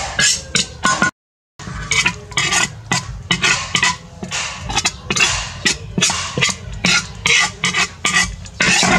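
Metal spoon scraping and stirring peanuts and chili sauce in a metal wok, a rapid run of short scrapes and clinks. A brief cut to silence comes about a second in.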